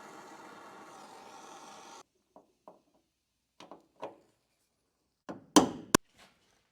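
A steady hissing tone cuts off abruptly about two seconds in, followed by a few light knocks and then a loud thud with a sharp click near the end: tools and parts being handled in a truck cab.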